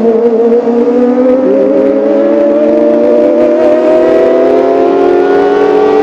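Kawasaki ZX-25R's 250 cc inline-four engine at high revs, a loud wailing note whose pitch climbs slowly and steadily.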